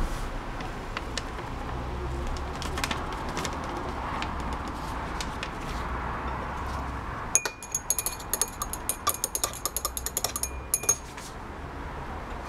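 Glass stirring rod clinking rapidly against the inside of a glass beaker, many quick ringing taps from about seven seconds in until about eleven seconds, as crude 1,3-diphenyltriazene is stirred into hot ethanol to dissolve it. Before that there is only a steady low background noise.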